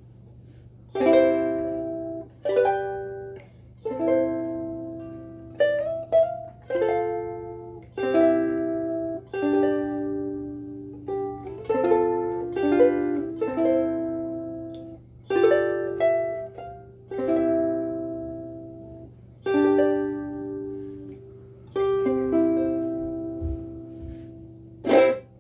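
Kala KA-CLM-S mahogany soprano ukulele, fitted with a bone saddle and Aquila black strings, played as a run of chords struck one after another, each ringing out and fading, with a steady low hum underneath.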